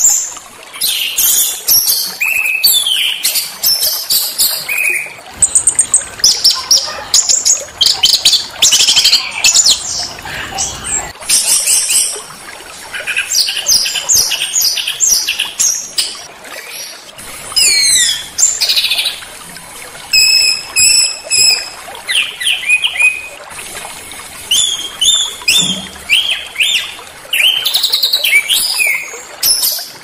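Small songbird song: a rapid, varied stream of sharp high-pitched chirps, trills and quick up-and-down whistled sweeps, delivered in phrases with short pauses between them.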